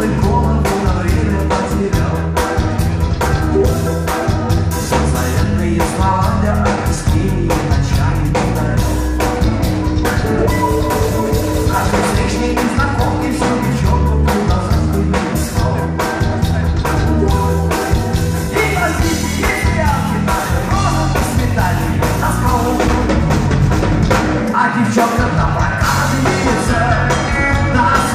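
Live rock band playing a song, with drum kit, bass guitar and electric guitar under a singing voice, amplified through the stage sound system.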